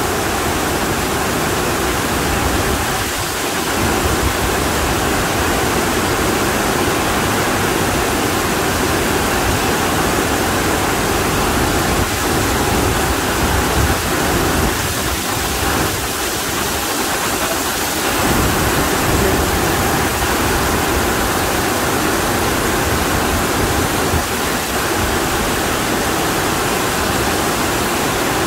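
Extremely heavy monsoon rain pouring down: a loud, steady rush of water.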